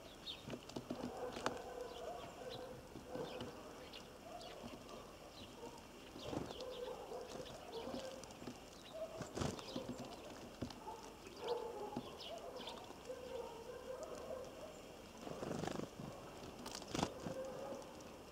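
Birds at a feeder: irregular pecking and tapping on the feeder, with short high chirps between the taps.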